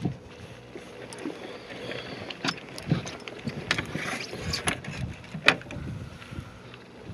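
Several sharp clicks and knocks as a big speckled trout is handled on a boat's deck with a lip-grip tool, the loudest about five and a half seconds in, over a low steady background of wind and water.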